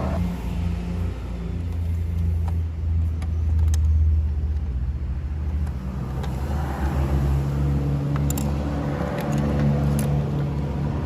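A motor vehicle running steadily with a low hum that shifts slightly in pitch, with a few sharp clicks.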